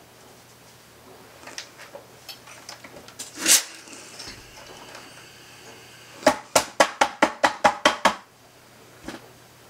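A wooden tailor's clapper knocking on a folded denim hem on a padded sleeve board: about ten quick strikes in two seconds, starting about six seconds in. A short, sharp hiss comes a little before them, about three and a half seconds in.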